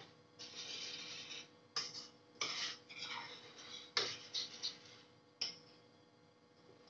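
Metal spoon stirring and scraping around a stainless steel bowl of liquid in several short strokes, followed by a few sharp clinks and clicks.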